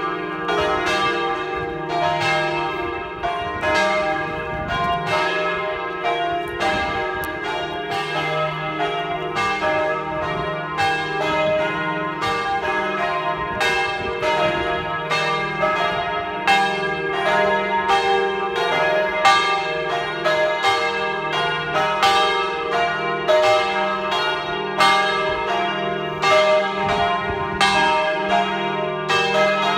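The three bronze church bells of a belfry (E-flat, F and G; 1250, 900 and 650 kg; cast by the Jules Robert foundry of Nancy) ringing together in a continuous peal. Their strokes fall about one or two a second and overlap, over a steady low hum from the bells.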